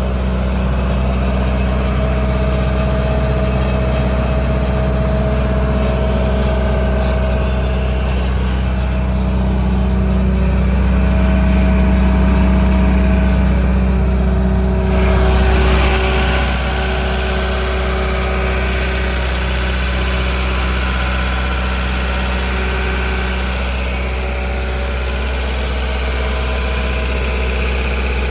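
Kubota V3800 four-cylinder diesel engine of a Kaeser M 115 N mobile air compressor running steadily. About halfway through, a hiss comes in and stays alongside the engine.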